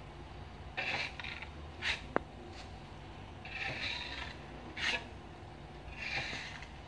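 Metal filling knife scraping across a plaster wall as filler is spread and smoothed, in repeated strokes each under a second long. A sharp click about two seconds in.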